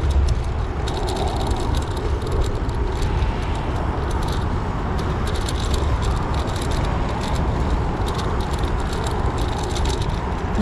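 Steady road-travel noise: a low rumble and hiss with frequent light rattling clicks.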